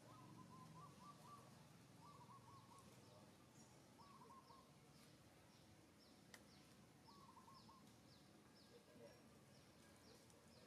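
Faint distant bird calls: short runs of quick notes repeated every couple of seconds, with a faint high chirp repeating about twice a second over low outdoor background noise.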